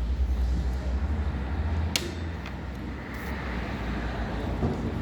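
Low vehicle rumble, heaviest in the first two seconds and then easing, with a sharp click about two seconds in.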